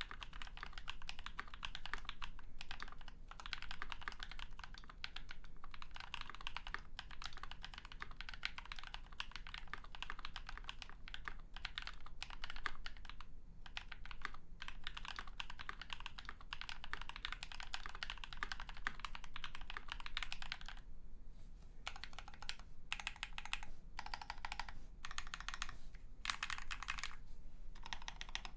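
Continuous typing on a mechanical keyboard: a polycarbonate KBD67 MKII case with an FR4 plate and foam, lubed NovelKeys Cream linear switches and GMK doubleshot ABS keycaps. Dense, fast keystrokes for most of the time, breaking into short bursts with brief pauses in the last several seconds.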